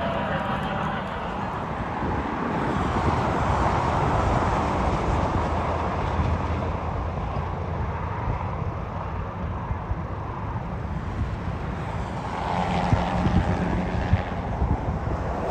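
Union Pacific Big Boy 4014, a 4-8-8-4 articulated steam locomotive, working its train upgrade: a steady heavy rumble of exhaust and rolling cars, swelling slightly twice, with a few sharp knocks near the end.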